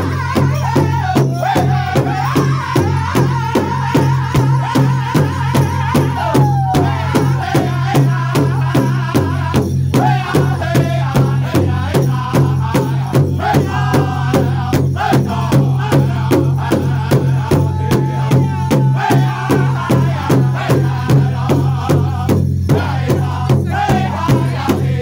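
Powwow drum group singing around a large shared powwow drum, several drumsticks striking it together in a steady, fast unison beat while the singers carry a high, wavering melody.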